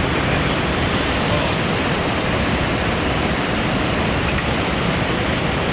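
Water fountain splashing: a steady, loud rush of falling water.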